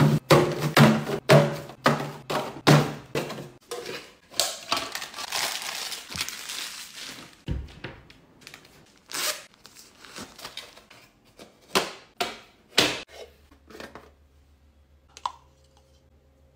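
Household handling sounds: a quick run of knocks and thunks, then a few seconds of plastic crinkling, then a handful of separate knocks. A faint low steady hum is left near the end.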